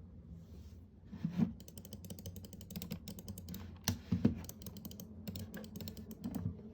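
Fantech Thor II X16 mouse buttons, newly fitted with Kailh Sword micro switches, clicked in a quick run of sharp clicks, with a few louder knocks in between.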